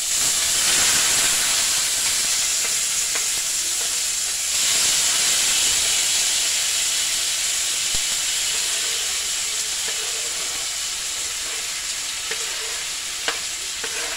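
Chopped onion, scallion, tomato, thyme and peppers sizzling in hot oil in a stainless steel pot, the sizzle starting suddenly as they hit the oil. It grows louder about four and a half seconds in, then slowly eases off, with a couple of light clicks near the end.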